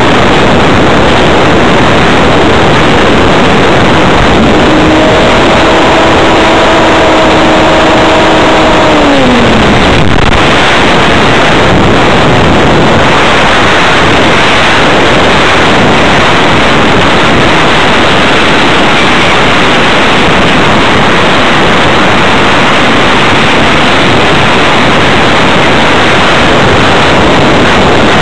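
Airflow rushing loudly over an onboard camera's microphone on a fast electric RC hotliner flying wing. About four seconds in, the electric motor and propeller whine comes through as a steady tone, then drops in pitch and fades a few seconds later as the throttle comes back.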